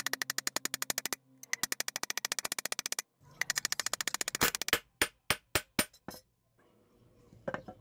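Hammer blows forging a silver spoon blank on a steel bench block: fast runs of about a dozen strikes a second, broken by short pauses. After them come a handful of slower single blows, then one last blow near the end.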